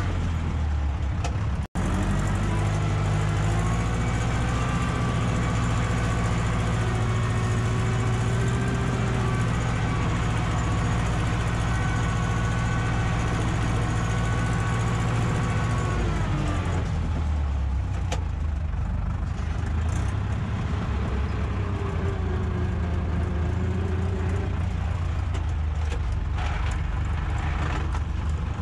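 Ursus tractor's diesel engine running steadily under load, with a whine over it. About sixteen seconds in, the engine note drops lower.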